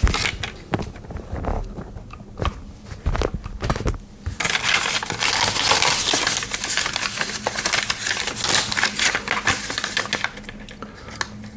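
Handling noise: scattered light clicks and taps for a few seconds, then about six seconds of paper rustling as an instruction leaflet is unfolded and handled.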